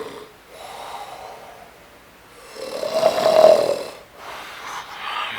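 A person snoring in the heavy, rasping 'terror' style likened to a bear's snore: a quieter snore about a second in, a loud one around three seconds in, and another quieter one near the end.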